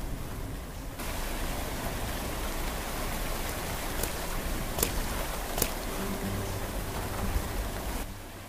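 Steady rain falling, a hiss that grows fuller about a second in and cuts out near the end. Three sharp clicks a little under a second apart come in the middle, and a low steady hum joins in the last couple of seconds.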